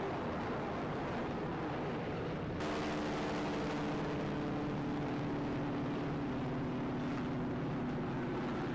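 Jet aircraft engine noise from a flying display. About two and a half seconds in it changes abruptly to a slightly louder, steadier jet sound carrying a droning hum of several steady tones.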